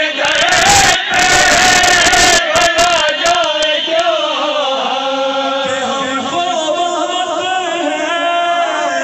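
A man singing a devotional Shia fazail recitation through a microphone, with a group of men chanting along. A loud burst of noise covers the first couple of seconds.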